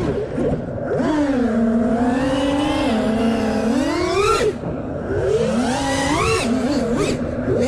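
Brushless motors of an FPV freestyle quadcopter whining, their pitch rising and falling with the throttle. The pitch holds fairly steady for a few seconds, drops briefly about four and a half seconds in as the throttle is cut, then climbs in quick punches.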